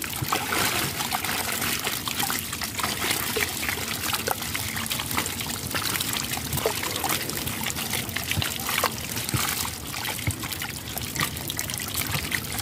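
Water trickling and splashing, with many small quick flicks and patters: a netful of small live fish flapping against a wet mesh net as hands scoop through them.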